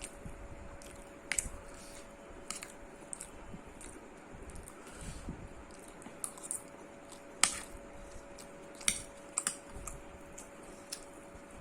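Eating sounds: irregular short clicks and smacks from mouth and food, about ten of them, the loudest about seven and a half and nine seconds in, over a faint steady hum.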